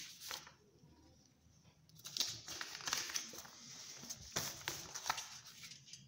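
Sheets of paper rustling and crinkling as they are handled, with scattered light clicks, starting about two seconds in: a written sheet lifted away and a fresh blank sheet laid down.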